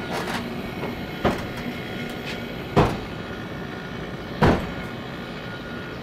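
Electric refrigeration vacuum pump running steadily, pulling a car's air-conditioning system down to deep vacuum before it is charged with refrigerant. Three short sharp knocks come about a second and a half apart.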